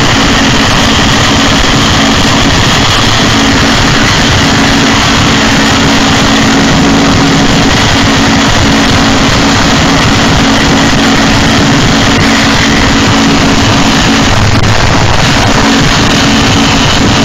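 Harsh noise music: a loud, unbroken wall of distorted noise with a steady low drone and high whining tones, the drone briefly giving way to a deeper rumble about three-quarters of the way through.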